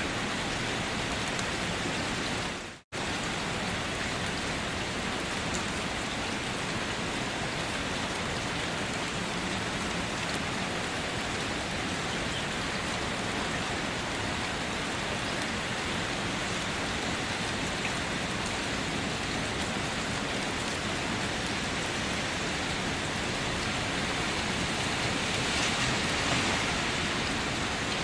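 Steady rain falling, an even hiss of drops that cuts out for an instant about three seconds in and swells slightly near the end.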